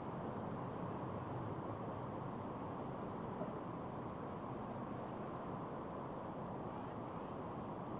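Steady outdoor rushing noise with a small bird's faint, high, falling chirps every second or two.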